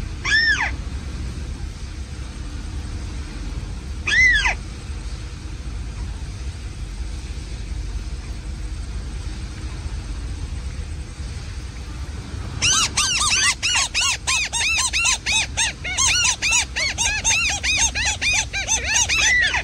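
Bird calls played through a camouflaged lure speaker at a net trap: two single arched calls with a few seconds between them, then, about two-thirds of the way through, a fast run of repeated arched notes that keeps on.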